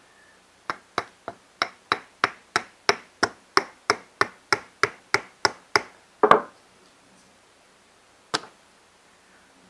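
Hand tool tapping on a small part, light regular taps about three a second for some five seconds, then a louder knock and, a couple of seconds later, one more sharp tap.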